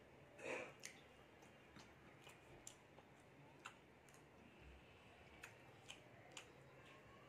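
Faint mouth sounds of eating rice by hand: scattered soft clicks and smacks of chewing, with one louder, longer sound about half a second in.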